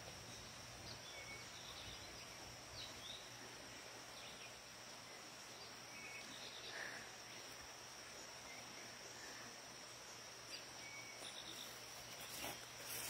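Faint outdoor ambience: a steady high-pitched insect drone with scattered short bird chirps, and a couple of soft knocks near the end.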